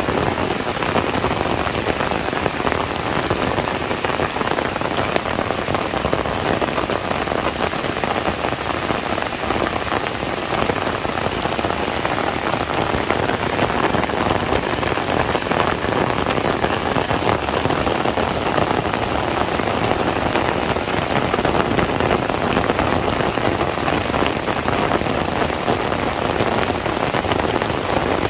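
Heavy rain falling steadily, a dense even patter of raindrops on surfaces.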